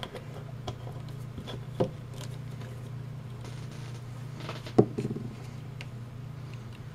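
Small clicks and knocks of objects being handled and set down on a workbench, the loudest a sharp knock about five seconds in, over a steady low hum.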